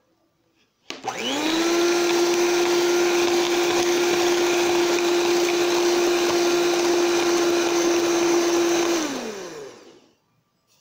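Electric hand mixer switched on about a second in, its motor whine rising to a steady pitch as the beaters whisk eggs and sugar in a bowl. It is switched off near the end, the pitch falling as the motor winds down.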